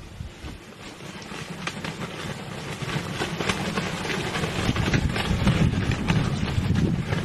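A flock of vultures scuffling and flapping their wings over a carcass: many short scratchy flaps that build up and grow louder, over a low rumble.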